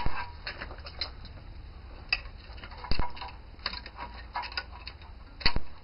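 Pliers clicking and snapping as a part is cut and pried off a television circuit board: a series of scattered sharp clicks a second or so apart.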